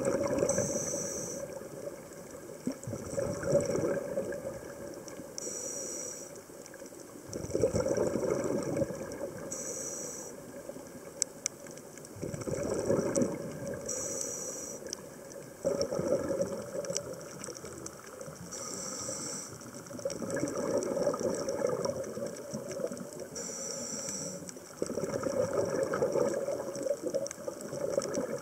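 Scuba diver breathing through a regulator underwater: short hissing inhalations alternate with longer rushing bursts of exhaled bubbles, about six breath cycles at a slow, even pace.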